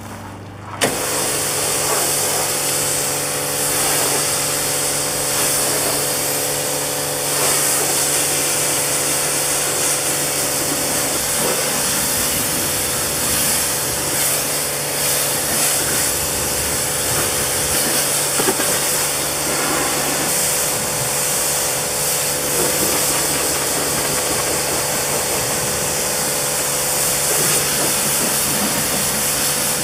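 A motor-driven machine running steadily under a loud, even hiss, switched on suddenly about a second in.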